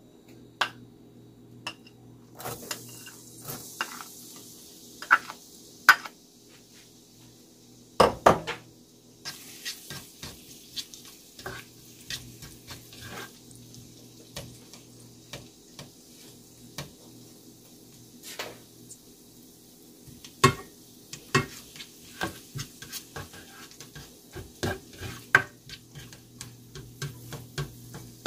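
Chopped garlic sizzling in hot oil in a stainless steel pot, with a spatula knocking and scraping against the pot as it is stirred. The sizzle starts a few seconds in, when the garlic goes into the oil, and a steady low hum runs underneath.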